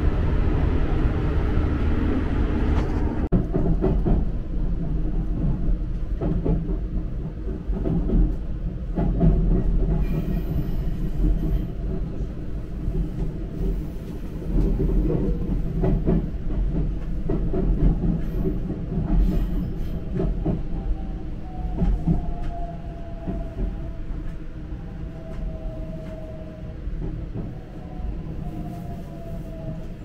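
JR Central Type 313 electric train heard from the cab, running with a steady low rumble and wheel clicks over rail joints and points as it comes into a station. A whine falls slowly in pitch through the second half as the train brakes, and the running noise eases off toward the end.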